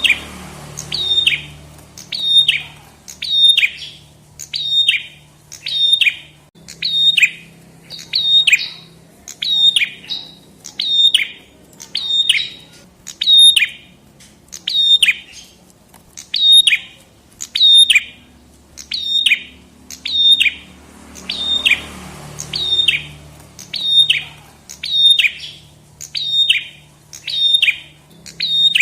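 Prenjak kepala merah songbird calling over and over, about one sharp, high chirp a second, each note dropping quickly in pitch.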